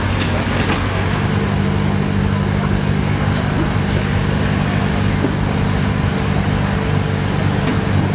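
Giant hydraulic robot arm's engine running steadily, its drone building about a second in as the arm raises its claw off a crushed car.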